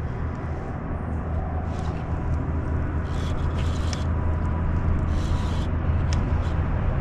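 Steady low hum with a few short hissing rasps about two, three to four, and five seconds in.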